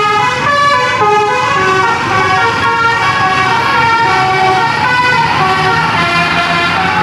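Telolet musical horn on a QQ Trans tour bus playing a quick melody, its notes changing about every third to half second.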